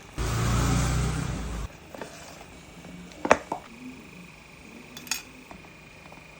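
A loud mechanical whirring noise with a low hum for about a second and a half, cutting off abruptly, followed by a few sharp clinks and knocks of hard objects, the loudest about halfway through.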